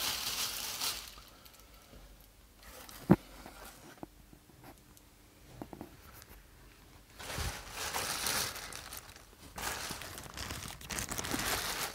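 Plastic bag crinkling and rustling in bursts as black rubber waders are handled against it, with one sharp click about three seconds in.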